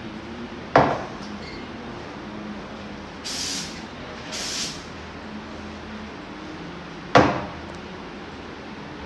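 Espresso machine steam wand purged in two short hisses, about three and four and a half seconds in. Before and after them come two sharp knocks of metal barista gear, one about a second in and one near the end.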